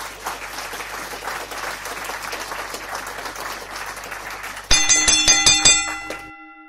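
Applause, a steady crackling patter of clapping. Near the end it gives way to a quick run of bright chime strikes that ring on and fade out.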